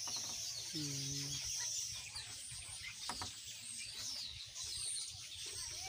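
A flock of young broiler chickens peeping and chirping continuously, many overlapping high chirps, with one short low-pitched sound about a second in.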